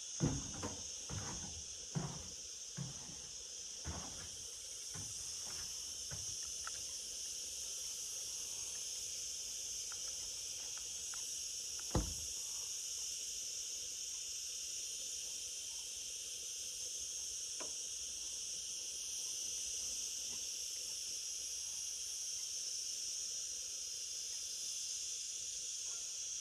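Steady high-pitched chorus of insects. A few footsteps sound in the first four seconds, and there is a single sharp knock about twelve seconds in.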